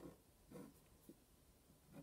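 Near silence, with faint scratching of a marker drawing lines on paper.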